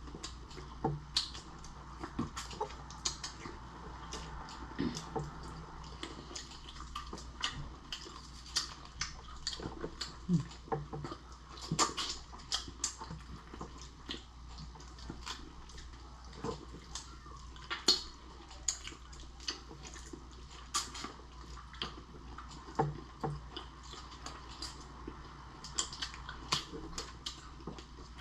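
Close-miked eating of saucy shrimp and lobster: wet chewing and slurping with many irregular sharp clicks and cracks, loudest about 12 and 18 seconds in.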